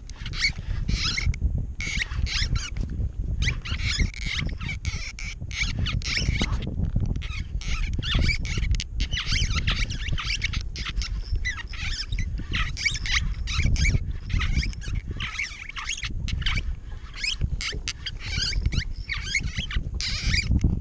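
Spinning reel being cranked, its gears and bail whirring and clicking in quick runs with brief pauses, over a low rumble of wind on the microphone.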